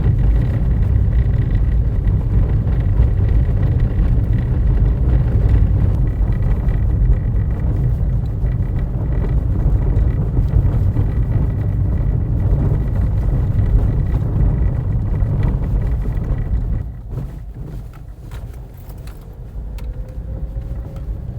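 Car driving noise heard from inside the cabin: a steady low road and engine rumble with a faint steady whine. About three-quarters of the way through it drops off sharply and stays quieter, as the car slows down.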